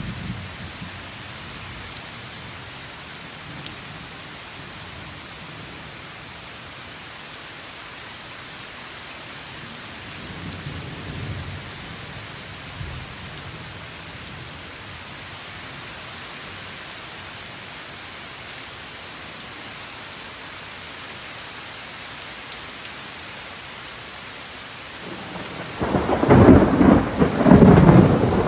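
Steady rain falling, with a faint low roll of distant thunder about ten seconds in and a loud rumble of thunder breaking in near the end.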